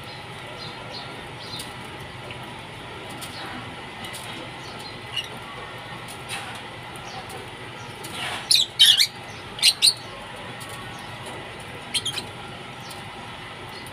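A flock of Fischer's lovebirds calling while they feed: short, shrill squawks, several loud ones in quick succession about two-thirds of the way in and a few more near the end, with fainter chirps between.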